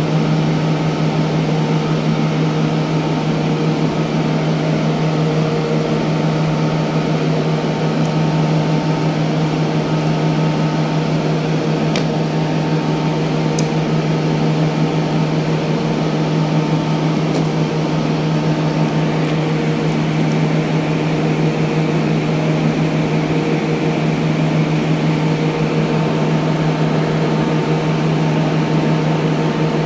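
Steady machine hum at one constant low pitch, unchanging throughout, with a faint click about twelve seconds in.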